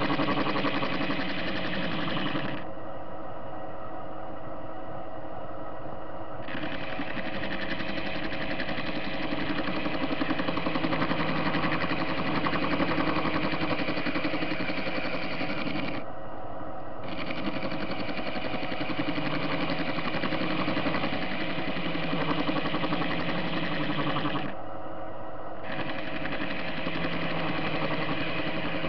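TV-16 lathe running with its tool facing the end of a steel washer blank: a steady machine hum with the scrape of the cut. The higher part of the sound drops away three times: about three seconds in for nearly four seconds, briefly at about sixteen seconds, and again for about a second near twenty-five seconds.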